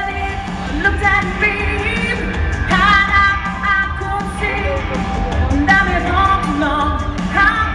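Live freestyle dance-pop: a singer over a loud backing track with a steady beat, heard from the audience in a large hall.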